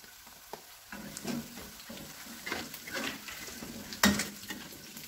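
Sliced garlic, shallots and lemongrass sizzling in hot oil in a wok while a spatula stirs and scrapes them, the aromatics being sautéed until fragrant. The stirring starts about a second in, with one sharp knock of the spatula against the wok about four seconds in.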